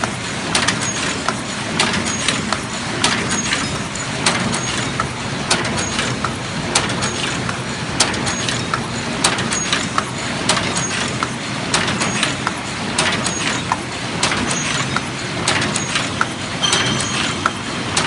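Paper cup making machine running: a steady mechanical clatter studded with rapid, sharp clicks from its moving parts, with a few short high tones near the end.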